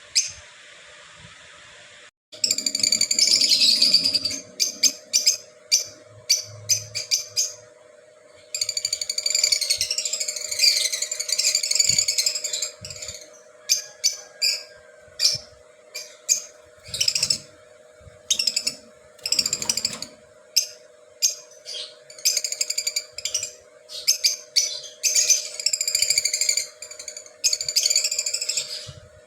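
A flock of lovebirds chattering in shrill, rapid calls, in dense stretches broken by short pauses, starting about two seconds in. A steady hum runs underneath.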